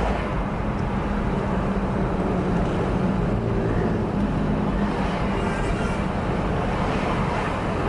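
Steady engine and road rumble of a car being driven through traffic, heard from inside the cabin.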